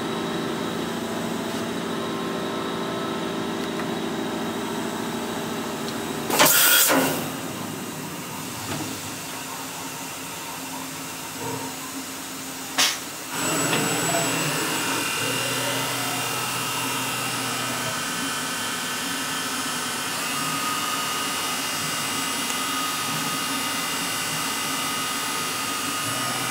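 Brother TC31-A CNC drill-and-tap machine running a program: a steady mechanical hum, broken about six seconds in by a short loud hiss and near the middle by a sharp click. After the click, whines rise and fall, then settle into steady high tones.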